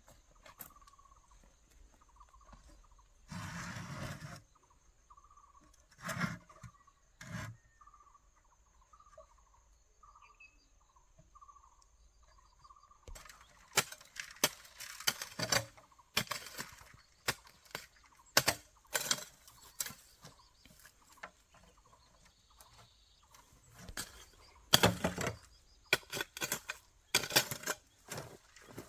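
Poultry calling softly, a short note a little more than once a second, through the first half. After that comes a long run of sharp knocks and rustles, with one louder rustling burst early on.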